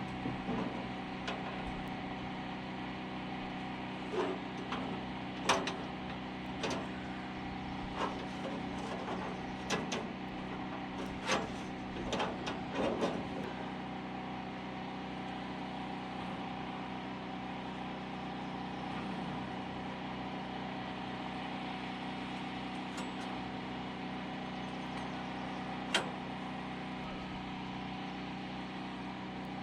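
Tractor engine idling steadily, with a series of sharp knocks over the first half and one more knock near the end.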